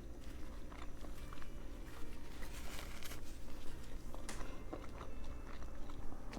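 A person chewing and biting into a veggie patty sandwich, close-miked, with small wet mouth clicks and a short louder crunchy patch about halfway through.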